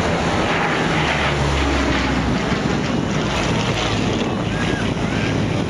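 Hawker Hurricane's Merlin V12 engine running with an even, steady sound as the fighter passes close overhead. Wind buffets the microphone.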